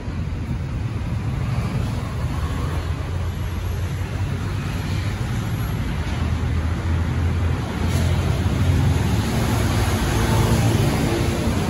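Steady rumble of road traffic, growing a little louder in the second half.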